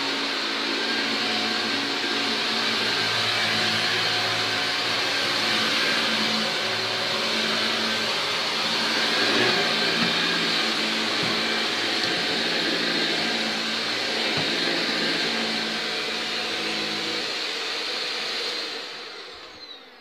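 Shark NV801UKT Lift-Away upright vacuum cleaner running steadily while vacuuming carpet, a constant motor whine. Near the end it is switched off and the whine falls away as the motor winds down.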